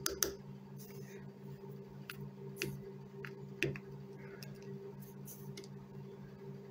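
A chicken pecking treats from a plastic bowl: sharp, irregular taps of its beak on the plastic, over a steady low hum.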